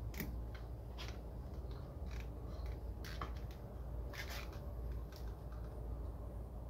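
Irregular small clicks and scraping as a tool works along the glued seam of a Bose cube speaker's plastic housing, breaking the glue to separate the halves. A steady low hum lies underneath.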